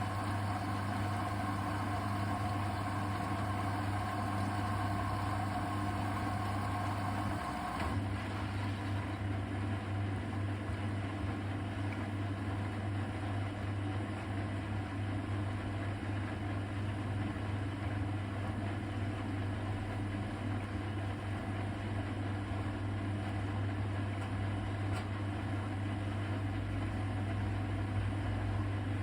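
Hoover VHD 812 washing machine running on a cotton cold cycle: a steady mechanical hum, with a higher whine that stops about seven seconds in.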